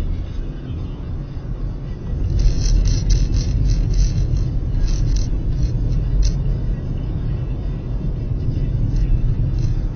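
Steady low engine and road rumble of a car driving, heard from inside the cabin. A scatter of light ticks or rattles comes in the middle stretch.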